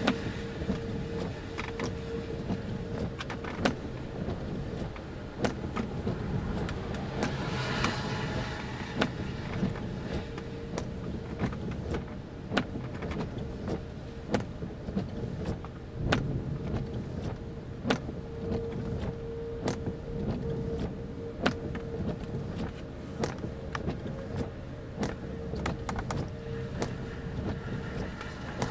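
Inside a vehicle: a steady low rumble with a steady hum, with scattered sharp taps of raindrops hitting the windshield. About eight seconds in there is a brief rush, like a vehicle passing.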